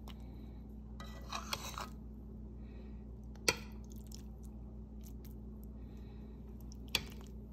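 Metal spoon working through dumplings in an enamelled pot: a soft scrape about a second in, then a sharp clink against the pot in the middle and a lighter one near the end, over a steady low hum.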